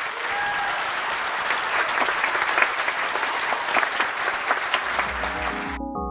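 Audience applauding. About five seconds in, music comes in and the applause cuts off suddenly.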